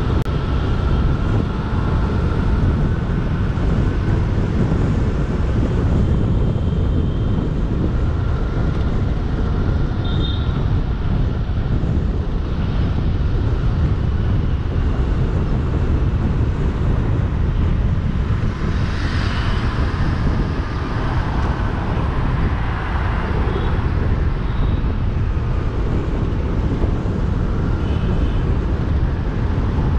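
Steady road noise from a car driving in city traffic: a low rumble of tyres and engine, with brief higher sounds of other traffic now and then and a louder passing swell about two-thirds of the way through.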